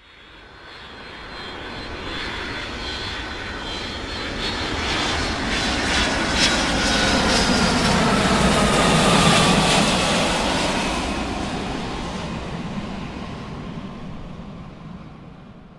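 An airplane flying past: its engine noise swells up to a peak about two-thirds of the way through and then fades away, with a whine that falls in pitch as it goes by.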